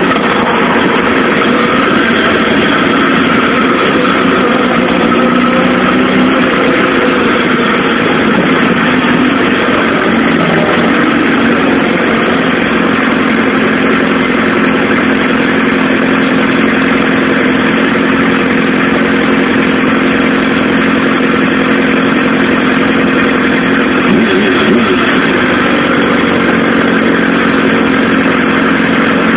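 Suzuki GSX-R SRAD's inline-four engine running steadily at a constant pitch over a steady hiss. The engine speed shifts slightly about a third of the way in and again near the end.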